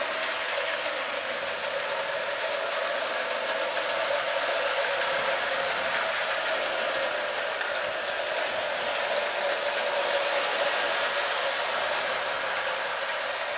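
Marx 666 toy steam locomotive and cars running around a tinplate three-rail track: a steady electric-motor whir with the wheels rattling and clicking over the rails.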